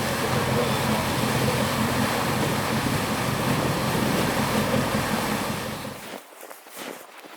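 Steady rushing of wind and water with a low hum underneath. It cuts off suddenly about six seconds in, leaving a much quieter background with a few light taps.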